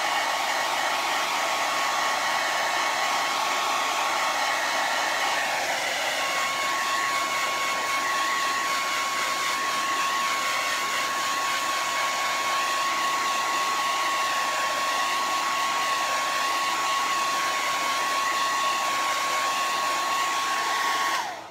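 Handheld hair dryer running steadily: an even rush of air with a steady high whine, switched off near the end.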